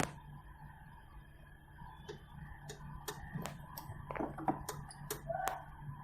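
Faint irregular clicks and taps, about two or three a second from about halfway in, over a low steady hum: hands and tools working on a washing machine's spin mechanism.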